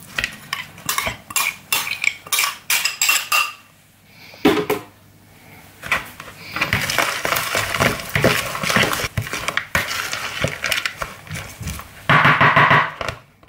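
Metal spoon clinking and scraping against a small glass bowl as a thick pine-nut vinaigrette is scooped out. This is followed by baby spinach leaves being tossed in a plastic bowl with the spoon: a rustle of leaves with spoon knocks on the plastic, loudest near the end.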